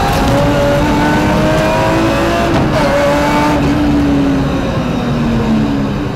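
BMW rally car's engine heard from inside the cabin, revving hard under acceleration: the pitch climbs, dips briefly about two and a half seconds in and climbs again, then falls away over the last two seconds as the revs drop.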